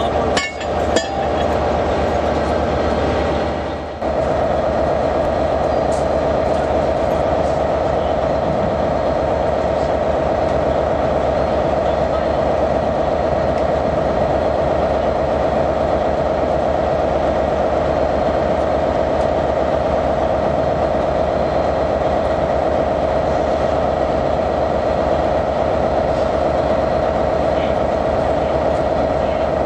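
A diesel train engine idling steadily, with a constant whine over a low rumble. A few sharp metal clinks in the first second, from the heavy steel coupling adapter being handled.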